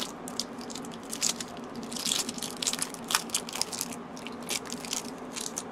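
Foil wrapper of a Magic: The Gathering Alliances booster pack crinkling and crackling as it is torn open and peeled off the cards, in an irregular run of sharp crackles.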